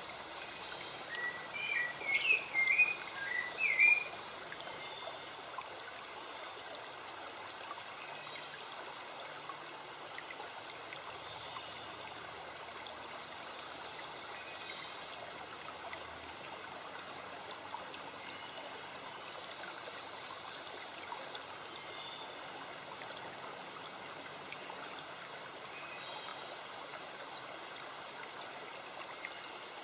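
Steady rush of a flowing stream. About a second in, a songbird sings a short warbling phrase of quick notes lasting about three seconds, louder than the water.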